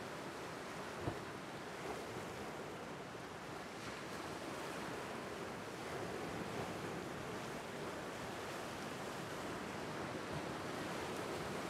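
Small Lake Superior waves washing and splashing over a flat rock shoreline: a steady rush of surf that swells a little partway through. There is one brief low thump about a second in.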